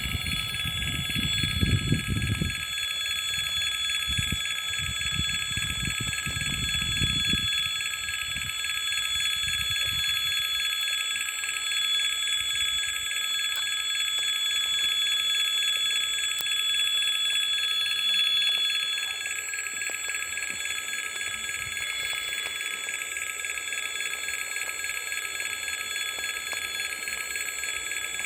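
Railway level-crossing warning bell ringing continuously and steadily, signalling an approaching train. Low rumbling noise comes and goes in the first seven seconds.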